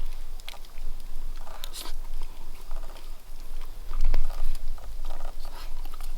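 A person chewing and crunching a mouthful of pan-fried campfire food, irregular crunches with a louder one about four seconds in.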